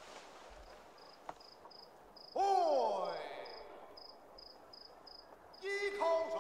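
A cricket chirping, about three short high chirps a second. About two and a half seconds in, a loud drawn-out call cuts in over it, sliding down in pitch, and another loud call starts near the end.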